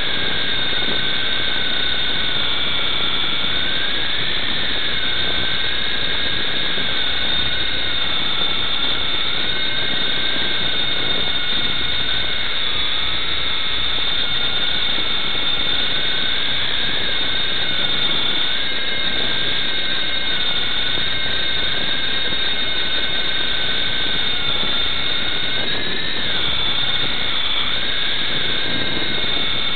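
Blade MD520 RC helicopter's electric motor and rotors whining steadily at a high pitch, the tone wavering slightly up and down as the rotor speed changes in flight.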